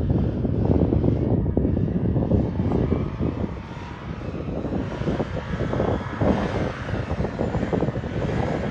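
Small drone's propellers whining over wind rumbling on the microphone. Its pitch shifts up and down from about halfway through.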